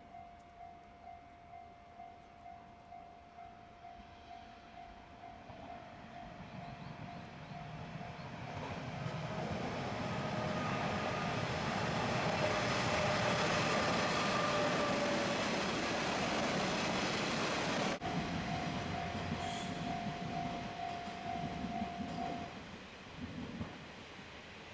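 Level-crossing warning bell ringing in a steady repeating ding, about twice a second, while a JR Shikoku diesel train approaches and passes with a rising rumble that is loudest in the middle. The bell stops a couple of seconds before the end.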